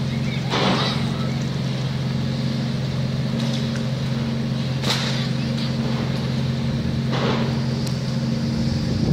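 Diesel engine of a long-reach demolition excavator running steadily with a low hum. Three brief hisses break in about a second in, midway and near the end.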